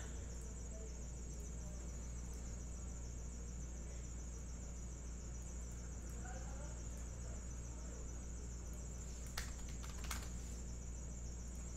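Steady low electrical hum with a thin, constant high-pitched whine over it. A few sharp clicks come about nine and ten seconds in.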